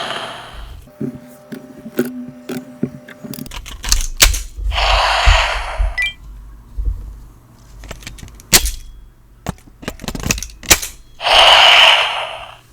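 Bandai DX Nichirinto toy sword playing its built-in sound effects: hissing bursts about a second long, twice, with sharp clicks and knocks between them.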